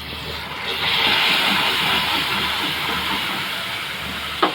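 Hot caramelized sugar sizzling as a little milk is poured into the pan; the hiss swells about a second in and slowly dies down, with a short knock near the end.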